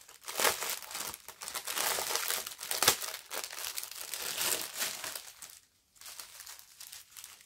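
Thin plastic crinkling and crackling as hands handle a strip of small sealed plastic bags of diamond-painting drills. The crinkling is irregular and dies down after about five and a half seconds.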